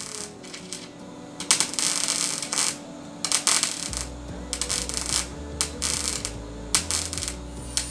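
MIG welder crackling in a run of short welds on sheet steel, stitch-welding a repair patch into rusted bodywork. Each burst lasts about a second or less, the first about a second and a half in, over background music.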